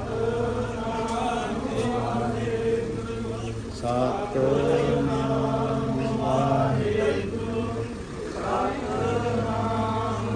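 Sikh devotional chanting (kirtan-style) over a steady held drone note that shifts in pitch a few times.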